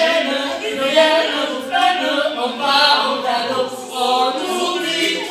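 Two voices singing a song together into a microphone, heard through a PA loudspeaker.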